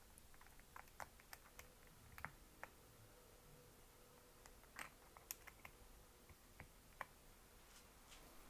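A 60% mechanical keyboard with Rose Panda tactile switches and MDA-profile keycaps being typed on: about a dozen crisp keystroke clacks at an irregular pace, with short pauses between them.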